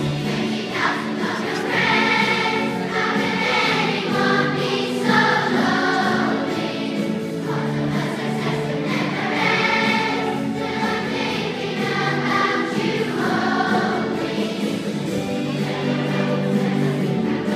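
Choir singing a medley with musical accompaniment, in phrases of a second or two over steady held low notes.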